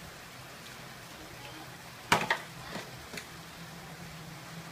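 A cooking utensil knocking against a metal pan while meat and sauce are mixed: one sharp clack about two seconds in, then a few lighter knocks, over a low steady hum.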